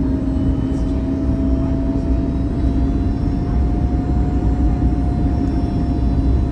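Steady jet aircraft noise: a loud, even rush with a low hum and a thinner higher tone that slowly rises in pitch.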